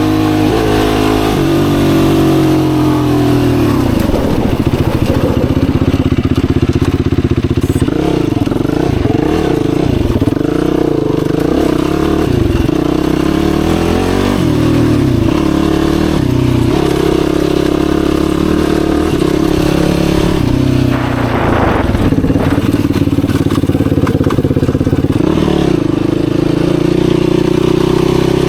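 Yamaha YFZ450R sport quad's single-cylinder four-stroke engine running under way, its revs rising and falling over and over as the throttle is opened and eased off.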